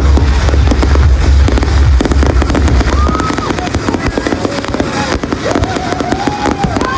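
New Year fireworks going off in rapid succession, a dense run of bangs and crackles, with a heavy low rumble that stops a little over three seconds in.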